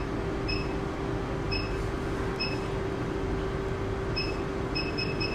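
Short high beeps from a cryolipolysis machine's touchscreen as its settings are tapped in, several single beeps spaced irregularly and coming closer together near the end, over the machine's steady pitched running hum.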